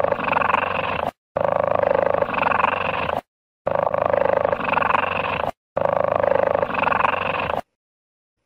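Cheetah vocalisation: the same clip of about two seconds played four times in a row, each cut off sharply with a brief silence before the next.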